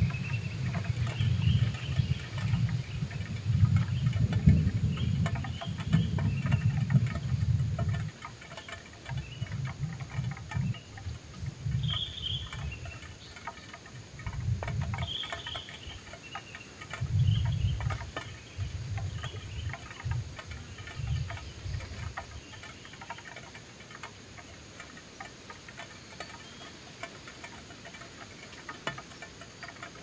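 Kingfisher chicks in the nest burrow giving faint, short high-pitched chirps again and again. Low rumbling and bumping close to the microphone as the chicks shift about comes and goes, and is loudest in the first eight seconds or so.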